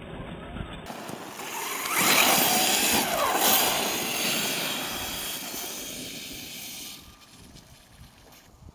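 Brushless electric motor of an HPI Savage Flux RC truck whining as it speeds up and slows, over a hiss of tyres throwing snow. It is loudest about two to three and a half seconds in, then fades as the truck drives away.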